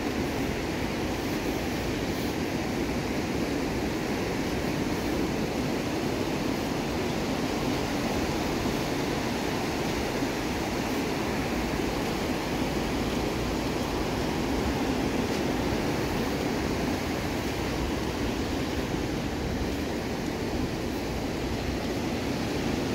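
Ocean surf washing onto a sandy beach: a steady rushing noise with a low rumble beneath it.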